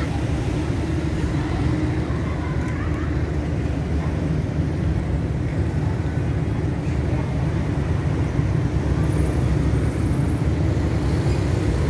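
Steady low rumble of road traffic crossing the bridge.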